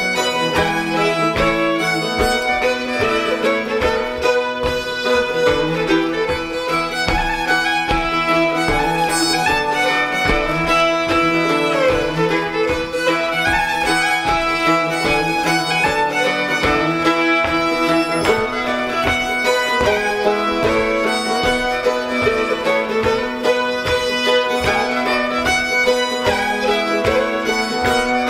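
Fiddle and a mandolin-type plucked string instrument playing a reinlender, a Norwegian folk dance tune, with the plucked instrument keeping a steady dance beat under the fiddle melody.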